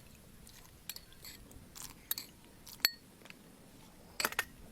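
Scattered small clicks and taps of kitchen utensils and ingredients being handled. A sharp, briefly ringing clink just before the three-second mark, like metal or crockery being struck.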